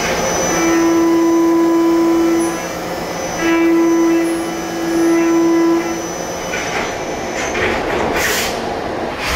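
CNC machining centre milling aluminium with a 6 mm carbide end mill at 10,000 rpm under flood coolant: two cutting passes, each a loud steady hum lasting about two seconds, with coolant spray hissing. After about six seconds the cutting stops, leaving hiss and a few short knocks near the end.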